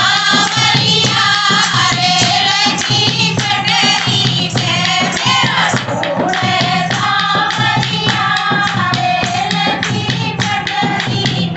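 A group of women singing a Haryanvi folk song in chorus, over a steady, fast percussive beat.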